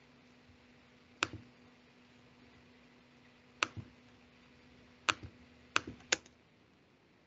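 About five sharp, separate clicks from a computer mouse and keyboard, spread over several seconds, the last three close together. A faint steady hum runs underneath.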